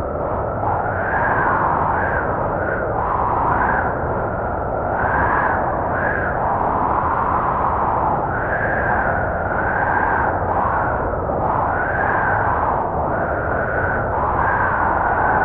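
Blizzard wind blowing: a steady rush of noise with a whistling tone that rises and falls every second or two.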